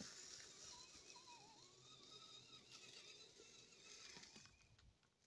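Faint, wavering whine of an RC rock crawler's electric motor and geartrain, rising and falling with the throttle as it crawls over dirt, dying away about four and a half seconds in.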